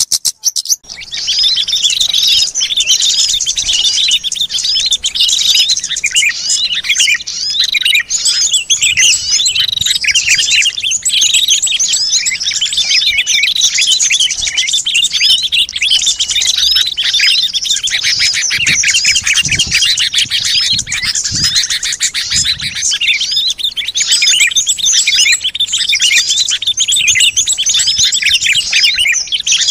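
Dense chorus of many small songbirds chirping and twittering rapidly and high-pitched without pause, a bird-lure ('pikat') recording for drawing in small wild birds. It starts after a brief break in the first second.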